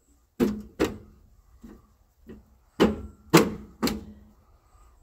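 Heater core being worked loose from its sheet-metal opening in a 1962 Chevrolet Impala's body: a string of sharp metal clunks and knocks. There are two loud ones about half a second in, a couple of fainter ones, then three more loud ones about three seconds in.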